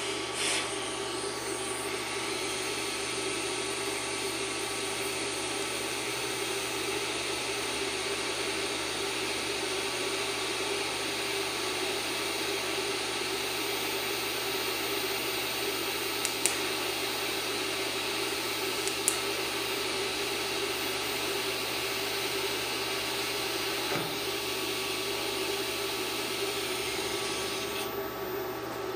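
DC TIG welding arc from a scratch-start Forney Easy Weld 100 ST, set to 60 amps and run without filler rod: a steady hiss that starts within the first couple of seconds and cuts off suddenly near the end, with a couple of sharp clicks midway.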